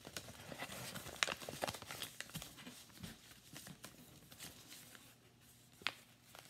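A sheet of paper being unfolded and refolded by hand on a tabletop: soft rustling and crinkling with scattered small clicks, busiest in the first few seconds, and one sharper tick near the end.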